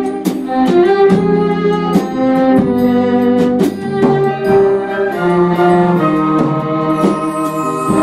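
String ensemble of violins and cellos playing together, bowed sustained notes moving through a melody.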